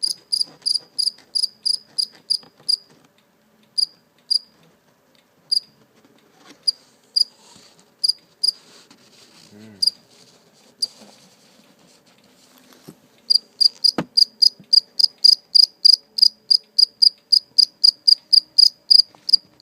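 A cricket chirping close to the microphone, a clear high note repeated in an even run. Partway through the chirps turn sparse and irregular and briefly stop, then resume as a fast, steady run, with a single sharp click just after they resume.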